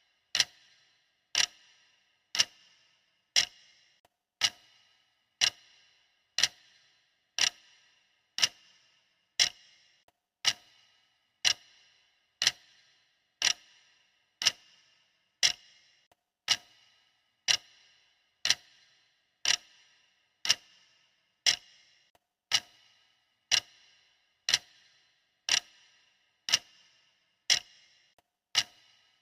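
Clock ticking sound effect: one sharp tick every second, each with a short metallic ring, keeping an even beat.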